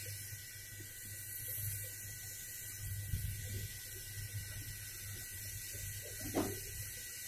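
Hot-air rework station blowing steadily, a low hum under a constant airy hiss, while it heats the solder of a VRM component suspected of shorting. A brief scrape or click about six seconds in.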